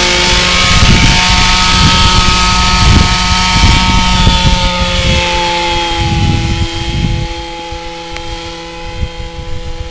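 Large radio-controlled helicopter lifting off and flying away: a steady engine whine with gusty rumble on the microphone, the pitch dropping slightly about halfway through and the sound fading over the last few seconds as it climbs off.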